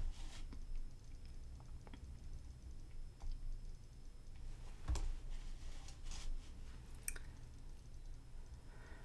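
Faint, scattered clicks at a computer while a web page is scrolled, about one a second, the loudest about five seconds in, over a low steady room hum.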